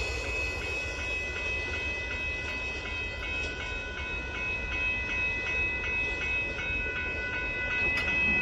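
Amtrak Texas Eagle passenger train rolling past with a steady low rumble of wheels on rail. A bright ringing pattern repeats about twice a second over it.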